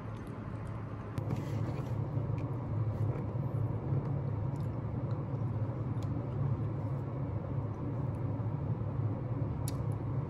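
Steady low rumbling background noise, with a few faint light clicks and taps of a plastic spoon and clear plastic clamshell cake box being handled.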